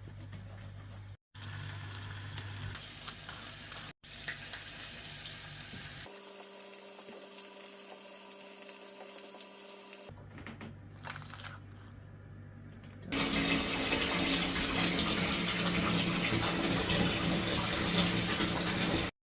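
Water running steadily from a tap into a sink, loudest over the last six seconds, after several short, quieter clips that cut off abruptly.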